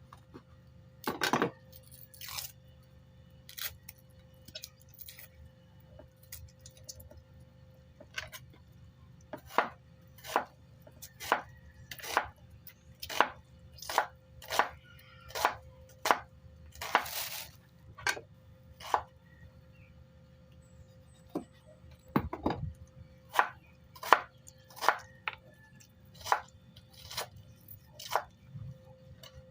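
Knife chopping grilled pork on a cutting board: a few scattered strokes, then steady chops about one a second, a short pause, and another run of chops.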